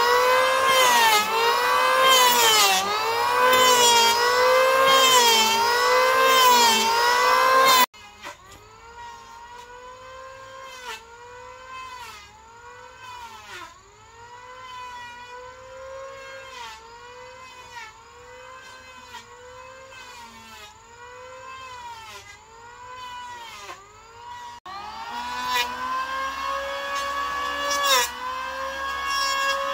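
Electric power tool working wood, its motor whine dipping in pitch and recovering about once a second as it is pushed through the cut. The sound drops in level about 8 seconds in and returns louder near the end.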